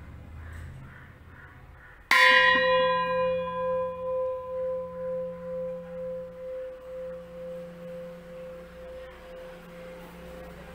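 Antique white-bronze (vellodu) uruli, a wide Kerala cooking vessel, struck once on the rim with a piece of metal about two seconds in, then ringing with a long, sharp tone that wavers in slow pulses as it slowly fades. The long-lasting ring is the mark of good-quality white bronze.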